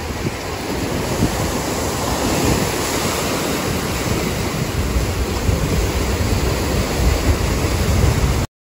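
Sea surf breaking and washing over black volcanic rocks along the shore, a steady loud rush, with wind rumbling on the microphone. It cuts off abruptly near the end.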